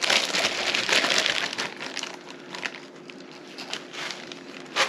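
Packaging crinkling and rustling as it is handled, loudest in the first second and a half, then scattered small clicks and rustles, with one sharp click near the end.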